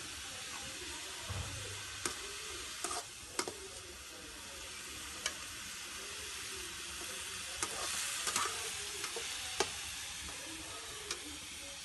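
Chopped onion masala sizzling in oil in a metal kadai, with a metal ladle stirring and clinking sharply against the pan about eight times. The masala is being cooked down until it gives up its water.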